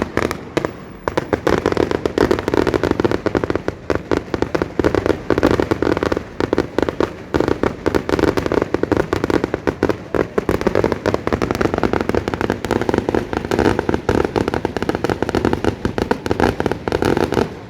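Fireworks display: a dense, continuous string of bangs and crackles, with a brief lull about a second in.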